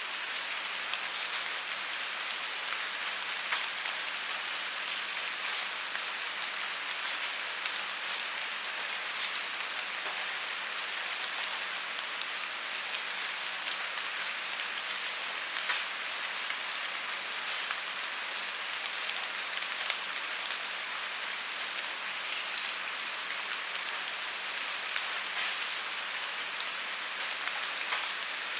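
Steady rainfall: an even hiss of rain with scattered drops ticking on a surface.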